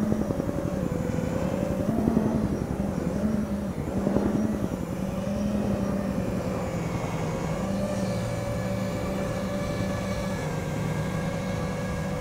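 Rotorcraft droning steadily, its pitch rising briefly about two and four seconds in, then holding even.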